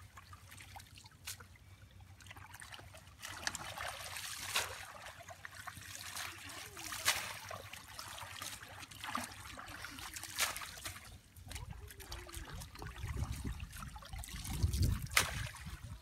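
River water trickling and splashing as men wade and haul a fishing net through shallow water thick with water hyacinth, with irregular sharp splashes every few seconds. A low rumble swells near the end.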